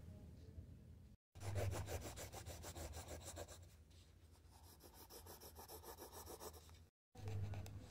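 Pencil scribbling on a paper workbook page: faint, rapid back-and-forth strokes that thin out about halfway through. The sound drops out completely for a moment twice.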